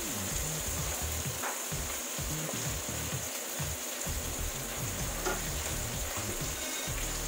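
Tomatoes sizzling in hot oil in a stainless steel wok, stirred with a wooden spatula. A steady frying hiss, with a couple of light knocks of the spatula against the pan.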